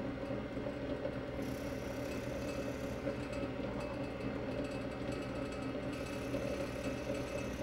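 Electric drill motor running steadily while boring 7/16-inch holes into poplar blocks.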